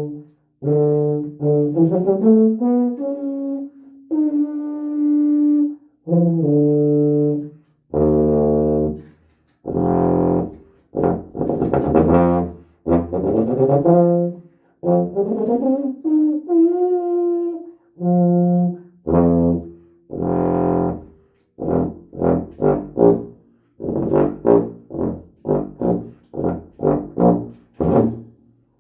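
Restored lacquered-brass H.N. White King sousaphone being play-tested: a series of low brass notes and short phrases, some held, some sliding up in pitch, ending in a run of short quick notes.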